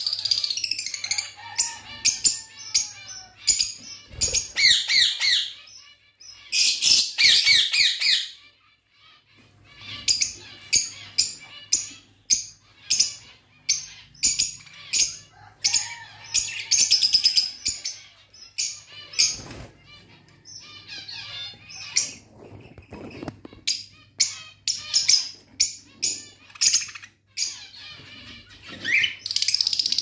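A flock of caged budgerigars chirping and chattering: a fast, uneven run of short high chirps, with several denser bursts of warbling chatter.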